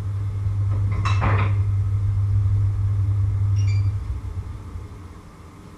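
Cookware clinks once about a second in, with a faint ring later, over a low steady electrical hum that fades out after about four seconds.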